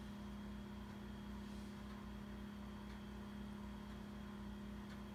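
Steady low electrical or mechanical hum of room tone, unchanging throughout, with a few faint soft ticks.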